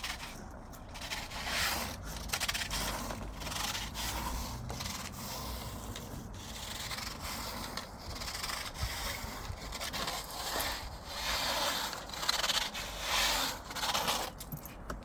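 Rubbing and scraping in irregular swells, roughly one every second or two: a vacuum cleaner's floor tool pushed back and forth over grass, with no motor running.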